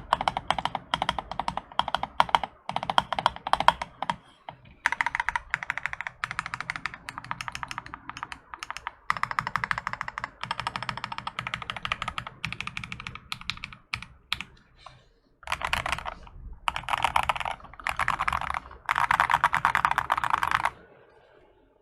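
Fast typing on an AKKO ACR 75 gasket-mounted acrylic mechanical keyboard fitted with Akko CS switches, in runs of rapid keystrokes broken by short pauses. The typing stops about a second before the end.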